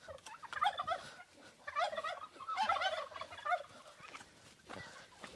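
Domestic turkeys gobbling, three or four quick warbling runs one after another.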